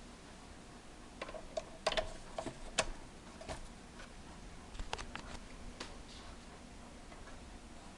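Irregular light clicks and taps of small hard objects being handled, in two short flurries.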